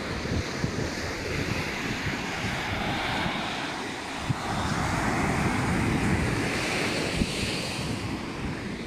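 Ocean surf washing onto the beach, with wind buffeting the microphone. The wash swells about halfway through and eases near the end.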